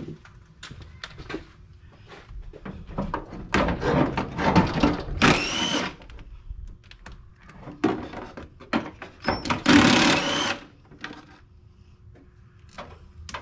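A handheld cordless power tool running in two main bursts, about four and ten seconds in, its motor pitch rising as it spins up, backing out the fender bolts. Short clicks and clanks of metal come in between.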